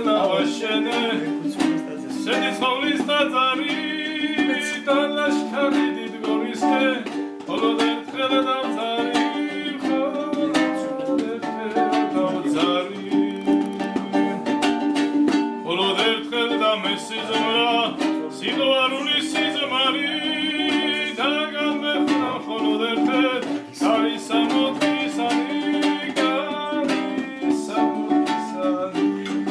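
A man singing a Georgian song in a wavering, ornamented line, accompanied by a plucked string instrument strummed and picked without a break.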